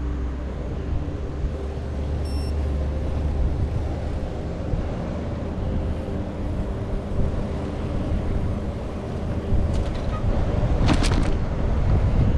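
Wind rushing over the microphone and road rumble while riding a bicycle along a road, with a short high beep about two seconds in and a few sharp rattles near the end.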